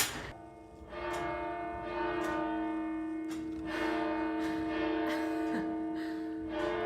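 Cathedral tower bell heard close up, struck by the tower clock's mechanism to ring the quarter hour. It gives repeated strokes about a second apart, and its tone hums on steadily between them.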